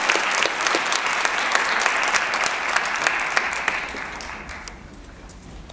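Audience applauding at the end of a dance performance, dying away about four to five seconds in.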